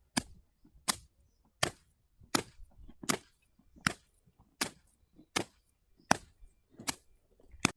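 Sharp knocks repeating at an even pace, about eleven of them, roughly one every three-quarters of a second.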